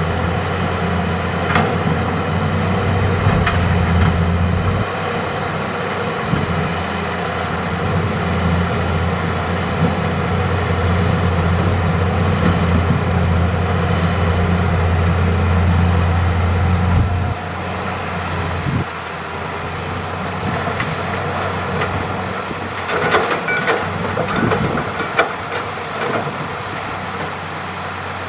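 Hitachi hydraulic excavator's diesel engine working under load with a steady heavy hum that eases to a lighter note about two-thirds of the way through. Near the end comes a run of clattering knocks.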